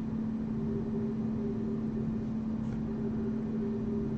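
Steady low mechanical hum with a constant pitch and an even noise beneath it.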